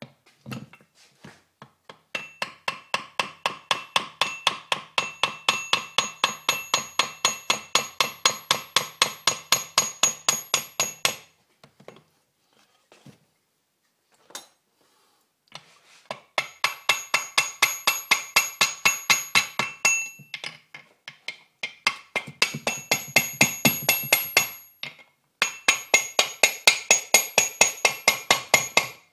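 Rapid, even hammer taps on a Harley-Davidson early Shovelhead four-speed gearbox case, tapping a part home at the shaft end. Each blow leaves the metal ringing in a few high tones. The tapping comes in three runs of several seconds with short pauses.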